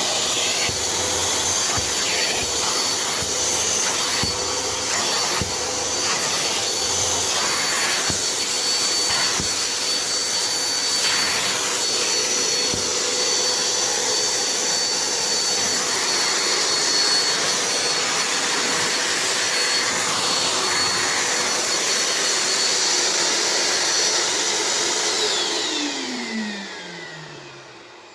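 Vacuum cleaner motor running steadily with a rushing airflow and a high whine. Near the end it winds down, its pitch falling as it fades.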